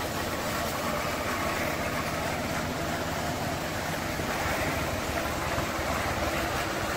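Steady running noise of a vehicle driving slowly on a dirt road: a low engine hum under an even rumble of tyres and wind.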